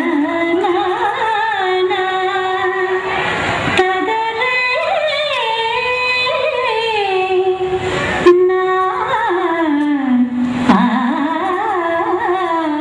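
A song to dance to: one voice singing a slow melody, holding long notes and sliding between them. Two brief clicks sound in the second half.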